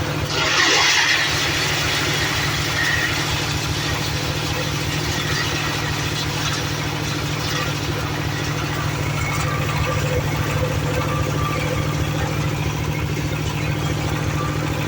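Engine idling steadily, with a brief loud hiss about half a second in.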